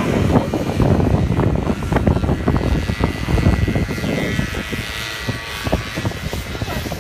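Antique two-stroke snowmobile engines racing, a steady engine drone over a heavy, uneven low rumble.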